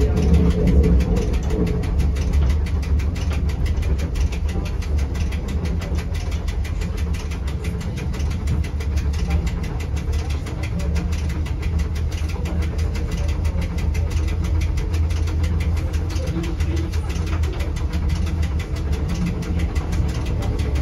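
Electric cogwheel (rack) railway railcar of the Rigi line running along the track, heard from inside the driver's cab. A steady low rumble of the drive and wheels, with rapid, regular clicking throughout.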